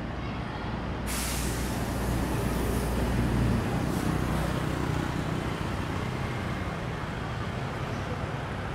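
Street traffic with a large vehicle's low engine rumble. About a second in, a sudden loud hiss of air starts, like a bus's air brakes venting, and slowly fades away.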